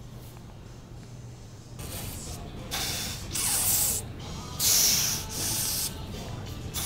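A man breathing out hard through pursed lips while bench pressing a barbell: a series of sharp hissing breaths, each about half a second long, starting about two seconds in.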